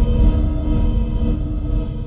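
Dark, droning soundtrack music: several held tones over a deep, steady rumble.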